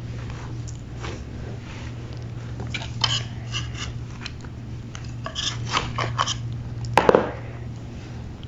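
Block of gym chalk being crushed: dry crunches and crackles in two short clusters, then a louder crunch about seven seconds in, over a steady low hum.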